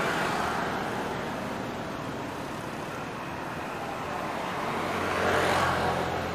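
Road traffic noise, with a passing vehicle swelling up and fading, loudest about five and a half seconds in.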